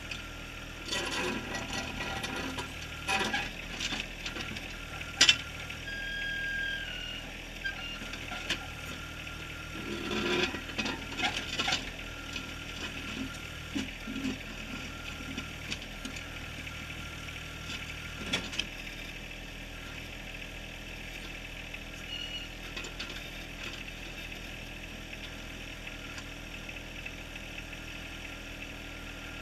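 John Deere 1023R compact tractor's three-cylinder diesel running steadily while the backhoe bucket scrapes and knocks against rock and gravel, with bursts of clanking in the first dozen seconds, one sharp knock about five seconds in and another just past the middle. The last ten seconds or so are the engine alone.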